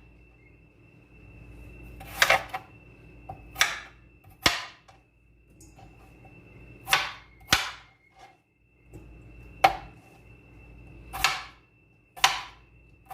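Kitchen knife slicing through raw potatoes and striking the cutting board: about eight sharp, separate chops at an uneven pace, roughly one every second or two.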